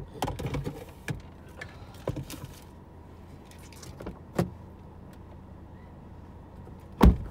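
Rustling and a few light knocks as a seatbelt is pulled across and things are shifted inside a car, then a car door slams shut about seven seconds in, the loudest sound.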